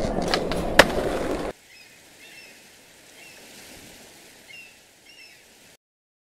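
Skateboard wheels rolling with a rough rumble and two sharp board clacks, cut off suddenly about a second and a half in. Then comes faint outdoor ambience with a few short bird chirps, which stops near the end.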